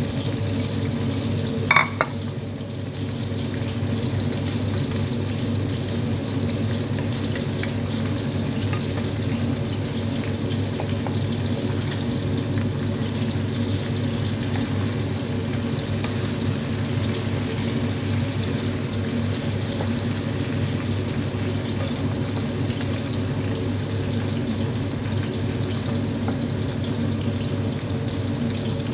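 Potato and eggplant pieces frying in a pan, sizzling steadily over a steady low hum, with a single sharp knock about two seconds in.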